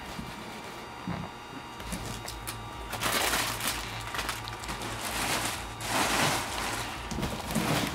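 Cardboard shipping box and packing being handled and rummaged through: a few rustling, scraping swishes, the loudest about three seconds in and again about six seconds in, over a low steady hum that starts about two seconds in.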